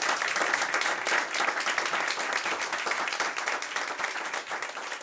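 Audience applauding: many hands clapping in a dense, even patter that slowly thins toward the end.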